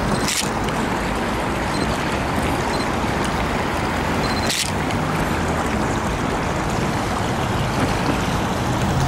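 Steady rushing outdoor noise with no voices standing out, broken by a brief sharp blip about half a second in and another about four and a half seconds in.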